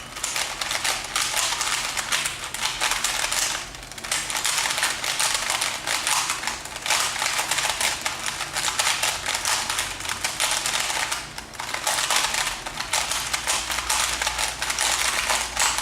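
DIY Rubik's Cube being scrambled by hand: rapid clicking and clacking of its plastic layers turning, broken by a few brief pauses.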